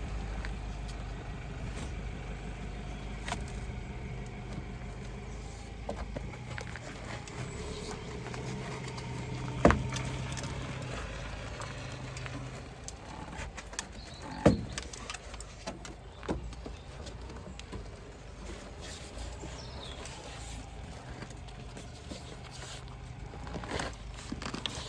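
A steady low vehicle rumble. Two sharp knocks stand out, one about ten seconds in and another about five seconds later, among a few smaller clicks.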